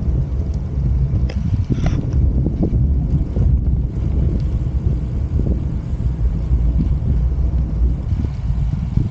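Wind buffeting the microphone of a camera carried along on a moving road bike, a steady heavy low rumble.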